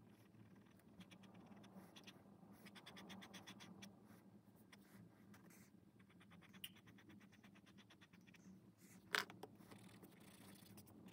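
Fine-tip pen scratching across sketchbook paper in quick hatching strokes, several strokes a second, in two long runs. About nine seconds in there is a single sharp tap, the loudest thing here, as the pen is put down on the desk.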